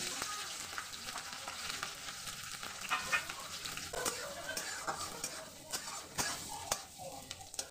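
Sliced onions and green chillies dropped into hot oil in a metal kadhai: a sudden sizzle that carries on while a spatula stirs them, with sharp clicks and scrapes of the spatula against the pan.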